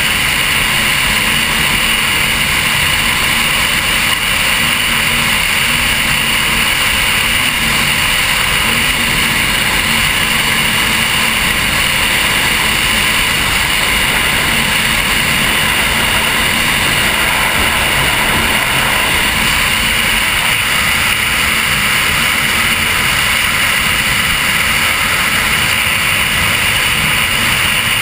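Offshore performance powerboat running at speed through choppy water: a steady engine drone under a loud rush of wind and water on the microphone.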